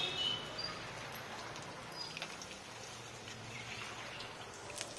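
Hot oil sizzling steadily around sweet bondas deep-frying in a large wok, with a few light clicks.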